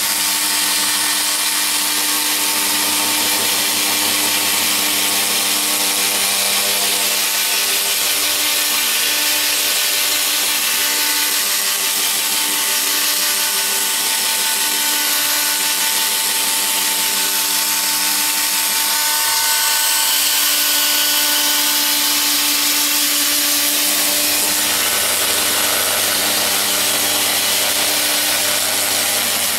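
Electric drill spinning a foam compounding pad against a plastic headlight lens with rubbing compound, a steady motor whine with the rub of the pad; the pitch shifts slightly a couple of times as the pressure or speed changes.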